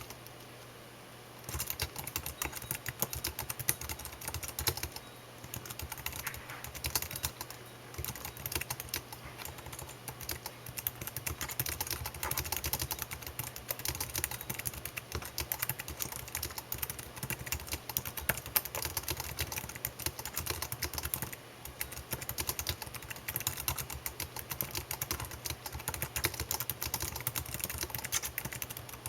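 Continuous fast typing on a computer keyboard: a dense patter of key clicks, broken by short pauses near the start and about two-thirds of the way through.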